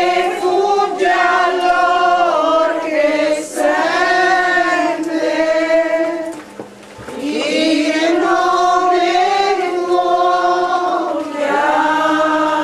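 A walking procession, mostly women's voices, singing a slow hymn in unison with long held notes, pausing for breath between two phrases about six and a half seconds in.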